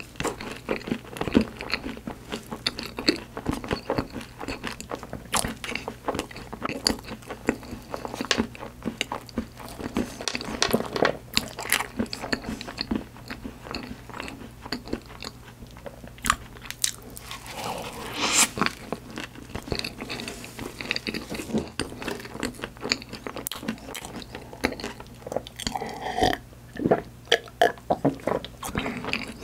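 Close-miked chewing and biting of cream-filled choux profiteroles topped with white chocolate, chocolate chips and sliced almonds: soft, wet mouth sounds broken by many small crunches. Near the end, a drink being swallowed in gulps.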